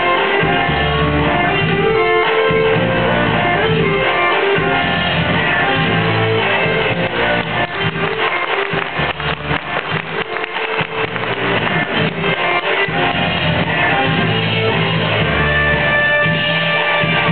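Guitar-led rock-style music playing continuously, with a fast, choppy passage of rapid strokes in the middle.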